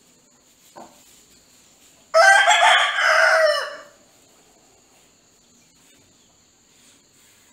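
Rooster crowing once, a loud crow of nearly two seconds starting about two seconds in.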